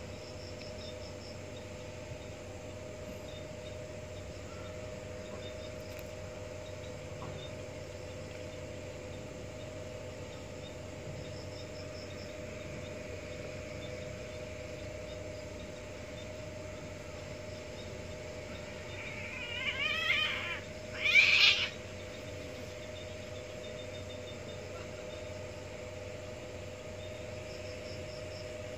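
Domestic cats yowling twice during mating, about twenty seconds in, the calls a second apart. The first call wavers in pitch and the second is louder.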